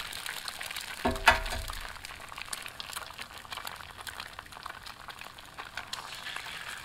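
Eggs frying in oil on a hot steel Blackstone griddle top, a steady sizzle with fine crackles throughout. About a second in there is a brief thump with a short tone.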